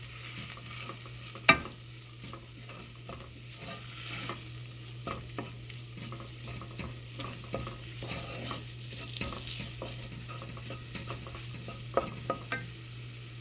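Spoon stirring and scraping a spiced masala frying in oil in a pan, with a low sizzle under many small scrapes. A sharp knock of the spoon on the pan comes about a second and a half in, and two more near the end.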